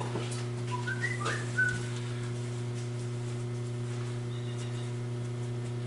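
A steady low electrical hum, with a quick run of four or five short whistled notes about a second in and a few light clicks.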